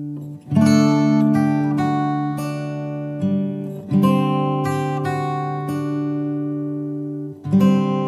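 Background music on acoustic guitar: plucked chords ringing out, with fresh chords struck about half a second in, near four seconds, and again near the end.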